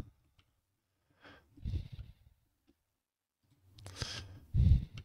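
A person breathing out close to the microphone twice, the second breath louder, with a few faint mouse clicks.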